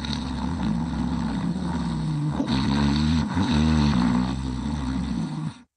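Low-pitched snoring that carries on steadily, then cuts off suddenly near the end.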